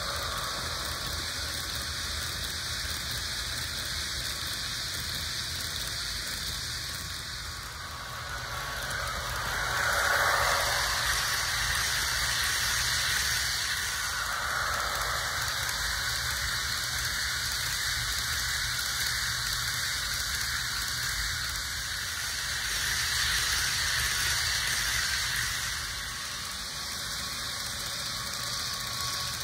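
HO scale model train, a Roco electric locomotive hauling passenger cars, running on track with a steady whirring hiss of motor and wheels. It grows louder about 10 seconds in, again around 15 seconds, and once more near the end as the train passes close by.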